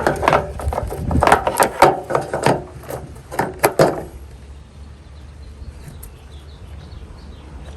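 Hands working loose plastic parts of a car's turn signal and corner light housing: a quick, irregular run of clicks and knocks for about four seconds, then it goes quiet.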